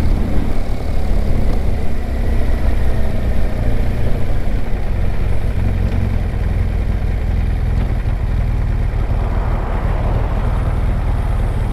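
BMW R1200GS Adventure on the move, heard from its helmet/bike camera: a steady low rumble of wind and engine noise, easing a little over the second half as the bike slows for a junction.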